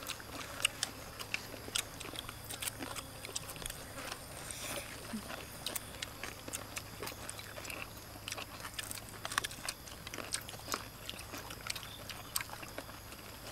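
Several people chewing and eating, with many scattered small clicks and crunches from chopsticks, plates and crisp food.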